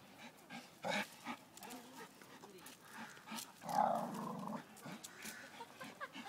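Dogs play-growling while tugging on a stick between them, with one longer, louder growl about halfway through and a few short knocks.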